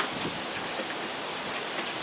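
Steady rain falling in a thunderstorm, with scattered drops tapping close by and one sharper tap right at the start.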